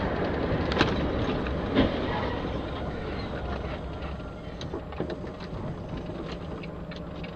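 Steady road and engine noise of a vehicle driving on a wet road, with tyre hiss and a low rumble. Two sharp knocks come about a second apart near the start, and a few fainter clicks follow later.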